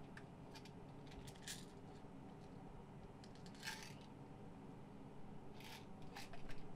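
Faint steady low room hum, with a few small clicks and rustles of something being handled. The clearest comes a little before four seconds in, and two more come near the end.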